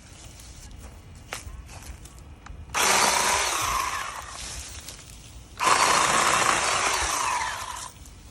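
Ryobi One+ 18V 10-inch cordless chainsaw running in two short bursts, about three seconds in and again near six seconds, each cutting off when the trigger is released.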